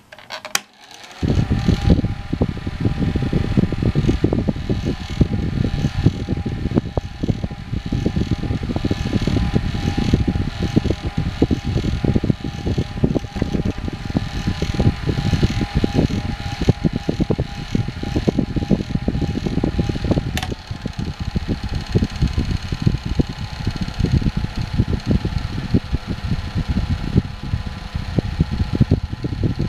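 O2cool 5-inch battery-powered desk fan switched on with a click, spinning up within about a second, then running steadily: a whirring with a thin whine over a low, uneven rumble. About two-thirds of the way through there is another click, after which the whine stops and the sound changes.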